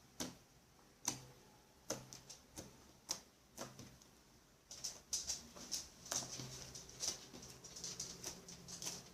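Fluffy shaving-foam slime squeezed and pressed by hand, making sharp clicking pops as trapped air bursts. A few scattered clicks come first, then a denser run of clicks and crackles from about five seconds in.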